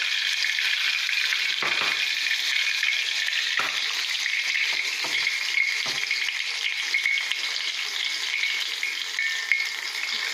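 Batter-coated chicken lollipops deep-frying in hot oil in a kadai, a steady sizzle throughout, with three light knocks in the first six seconds.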